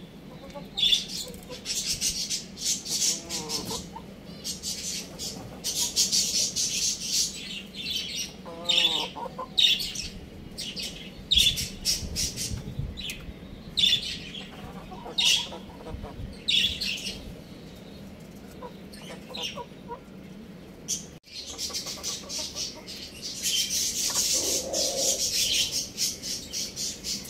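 Many birds chirping rapidly in high, continuous bursts, with a few lower clucking calls from young chickens mixed in.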